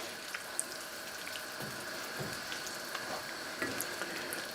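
Chicken stock and tomato paste heating in a hot pan: a steady sizzling hiss with scattered small pops and ticks, the liquid not yet back to a simmer after cold stock went in.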